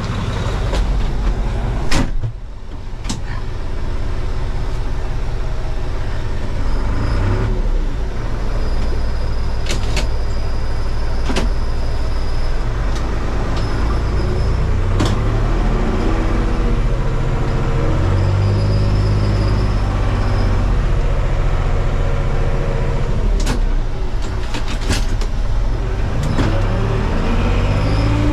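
Valmet tractor's diesel engine running, heard from inside the cab, its revs rising and falling several times. A few sharp knocks sound about two seconds in, around ten seconds and again near the end.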